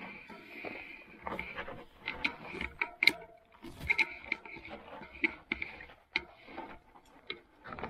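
Fat-tyre electric bike ticking and knocking irregularly as it goes over rough, slippery trail ground, with a faint high whine that comes and goes.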